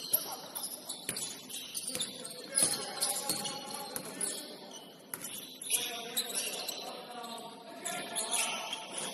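Basketball game in a gym: sneakers squeak sharply on the court again and again, with the odd thud of the ball and voices calling in the background.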